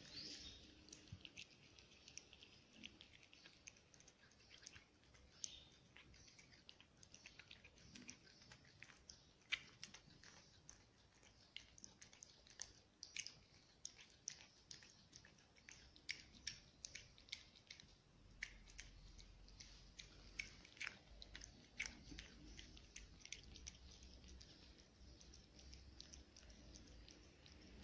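A cat eating from a plate, chewing and smacking its mouth in faint, quick, irregular little clicks, several a second.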